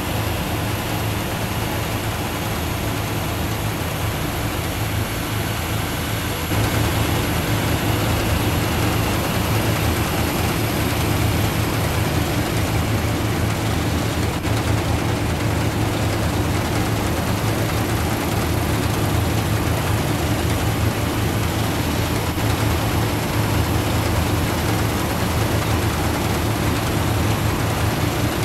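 Heavy machinery engine running steadily: a low hum under a broad rattling hiss. It steps up in loudness about six seconds in and then holds steady.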